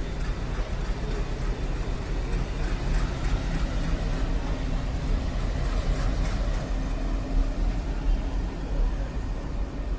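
Steady low rumble of a moving vehicle with a faint steady hum, unchanging throughout.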